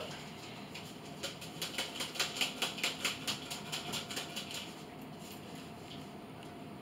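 Quick light clicking taps, about four or five a second for about three seconds, from food containers being handled and emptied into a blender jug.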